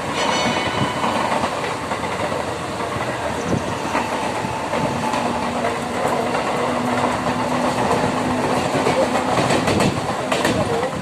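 Mumbai suburban local train running, with a steady rumble and rattle and occasional knocks of the wheels over rail joints. A low steady hum comes in about halfway through and fades out near the end.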